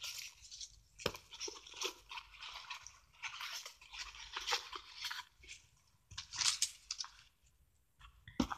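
Foam packing pieces and a cardboard gift box being rummaged through by hand: irregular crinkling and crunching, with a sharp knock about a second in and another near the end.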